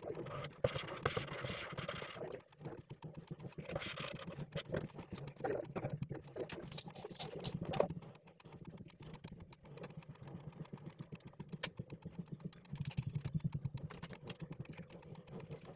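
Irregular clicking and clattering of stainless-steel kitchen trolley wire baskets and frame parts being handled and fitted, over a low steady hum.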